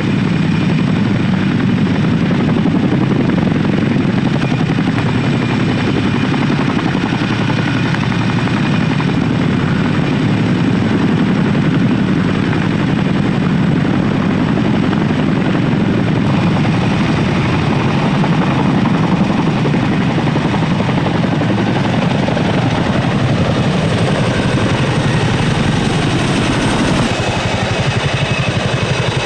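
Boeing CH-47 Chinook tandem-rotor helicopter running loud and steady: a rapid low beat from its rotors under a high turbine whine. The whine's pitch bends up and down in the second half.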